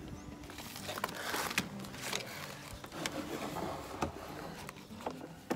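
Handling noise on a wooden tabletop: a few soft knocks and clicks as a jar and a vacuum sealer are set down, with brief rustling of a plastic vacuum bag.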